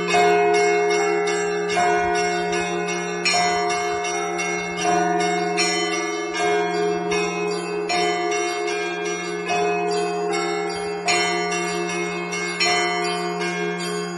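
Russian Orthodox church bells rung by one bell ringer: several bells of different pitches sounding together in a continuous rhythmic peal. A louder stroke falls about every one and a half seconds, with quicker high bells ringing between the strokes and a deep bell humming underneath.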